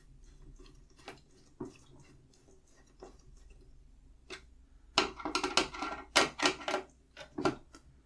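Light clicking and rattling of hands working the screws of a CPU cooler mounting bracket on a motherboard: a few scattered clicks, then a quick dense run of clicks and rattles about five seconds in, lasting a couple of seconds.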